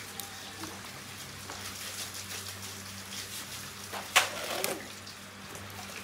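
Plastic bottles and a plastic bag being handled in a woven bamboo basket: light rustling and crackling, with one sharp knock about four seconds in, over a steady low hum.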